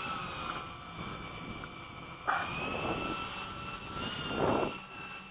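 Steady high whine of a radio-controlled model aircraft's electric motors, with two short rushing bursts about two and four and a half seconds in.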